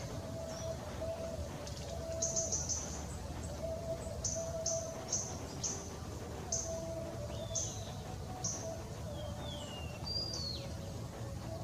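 Wild birds calling: a run of short, high chip notes about one every half second to second, with a few short down-slurred whistles in the second half.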